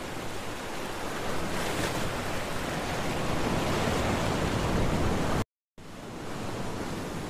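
Sea surf washing onto a sandy beach, a steady rushing noise that grows louder over several seconds. It cuts out to a moment of silence about five and a half seconds in, then resumes.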